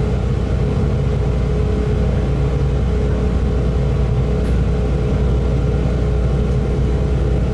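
Electric train heard from inside the carriage as it moves off from a station: a steady low rumble of the running train with a faint steady hum over it.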